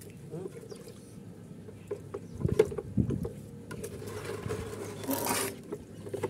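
A stick stirring freshly thinned paint in a plastic container: liquid sloshing and scraping, with a few low knocks around the middle and a short hissing rush about five seconds in.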